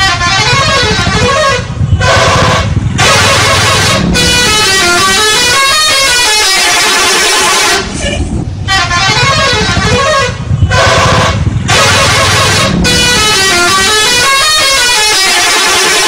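Indonesian bus 'telolet' musical horn, a set of air horns playing a fast tune of notes stepping up and down. The tune sounds loudly with a few short breaks, stops for about a second just before the midpoint, then plays through again.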